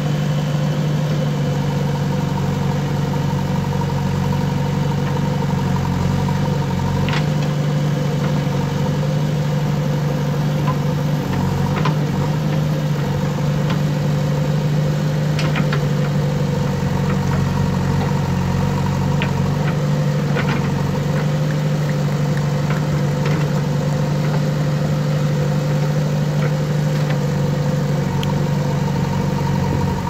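JCB backhoe loader's diesel engine running steadily under hydraulic load while the rear backhoe arm digs, with a few short sharp clinks from the arm and bucket.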